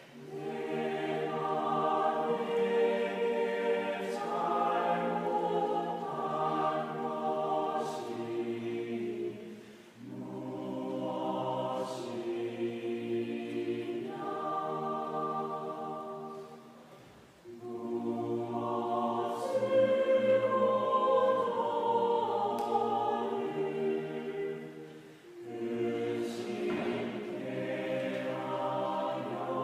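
Choir singing a slow hymn for the veneration of the cross, in long sustained phrases with short breaks between them.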